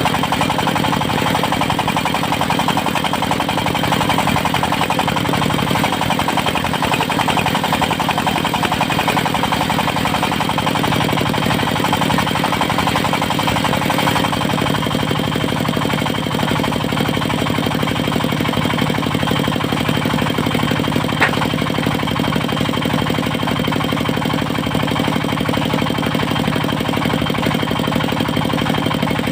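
Engine of a portable circular-saw mill running steadily, its low note shifting slightly about halfway through. A single sharp click comes about two-thirds of the way in.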